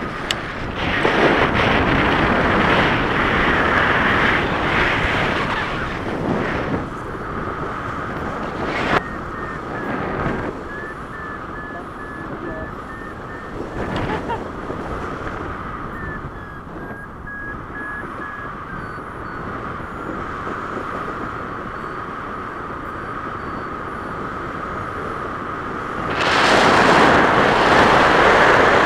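Wind rushing over the microphone of a camera held out from a tandem paraglider in flight, getting louder about 26 s in as the glider banks into a steep turn. A few soft knocks, and a faint run of short, steady beeps in the middle.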